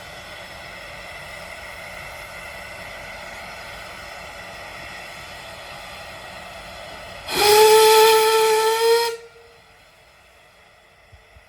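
Steam locomotive whistle, one blast of just under two seconds, rising slightly in pitch as it opens and then cutting off sharply. Before it comes a steady hiss.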